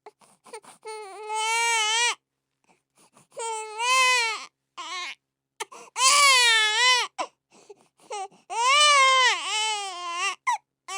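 Baby crying: four rising-and-falling wails, each a second or two long, with short catches of breath between them.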